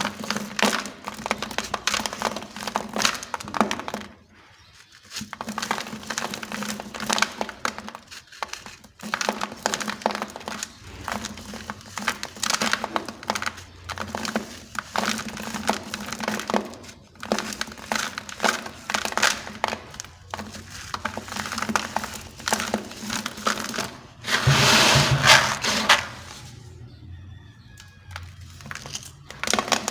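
Dry, gritty sand-and-cement blocks crumbling and crunching, a dense run of cracks and crackles with a couple of brief pauses and a louder burst of crunching about 24 seconds in.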